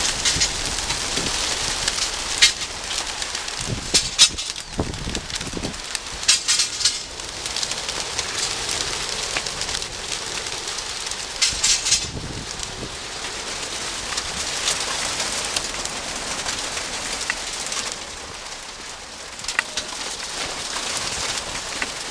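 A large flock of racing pigeons taking off together from a transport truck's crates: a dense, rain-like rush of many flapping wings, broken now and then by sharp clatters. The rush thins out near the end.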